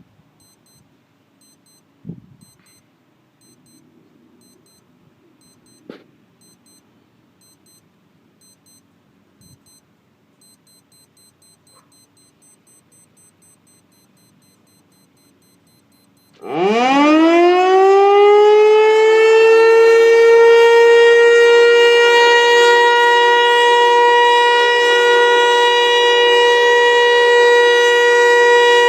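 Federal Signal Eclipse 8 outdoor warning siren starting up about 16 seconds in: it winds up rapidly in pitch and then holds one loud, steady tone. Before it starts there are only a few faint knocks.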